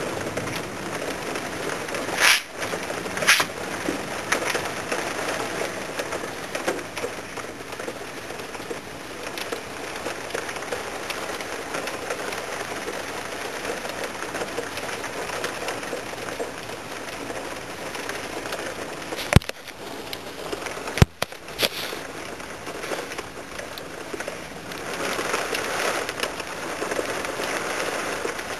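Heavy rain pouring down in a severe thunderstorm, a steady hiss that swells a little near the end. A few sharp clicks cut through it, two about two and three seconds in and two or three more about twenty seconds in.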